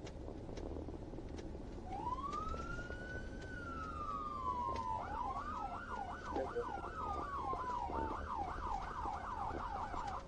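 Police car siren starting about two seconds in with a slow wail that rises and falls, then switching to a fast yelp of about two cycles a second, with a slow wail still sweeping beneath it for a few seconds. A steady low road and engine rumble runs underneath.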